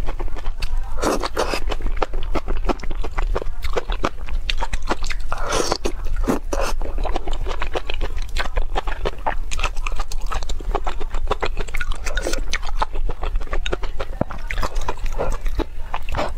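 Close-miked eating of cellophane noodle soup: wet chewing and mouth clicks throughout, with several loud slurps of noodles and broth.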